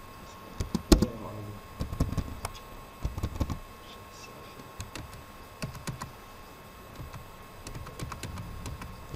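Irregular clusters of clicks and light knocks from handling a computer's keyboard and mouse, the loudest about a second in, over a faint steady whine.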